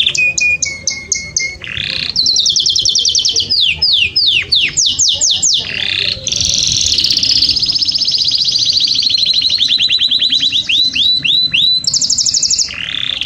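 Domestic canary singing a continuous song of fast trills and runs of repeated downward-sweeping whistled notes, switching to a new phrase every second or two.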